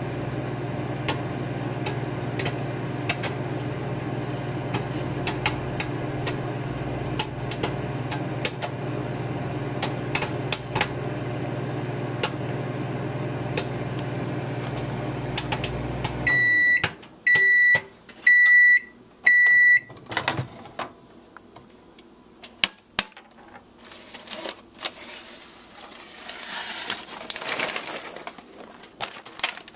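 Microwave oven running with a steady hum while popcorn kernels pop in a paper bag, sharp irregular pops over the hum. About 16 seconds in the hum cuts off and the microwave beeps four times, evenly spaced, signalling the end of the cook cycle; a few faint clicks and knocks follow.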